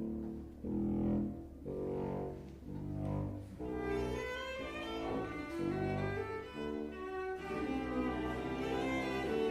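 A chamber ensemble plays contemporary music: low bowed strings, cellos and double bass, sound separate sustained notes roughly once a second. About four seconds in, higher instruments join and the texture thickens.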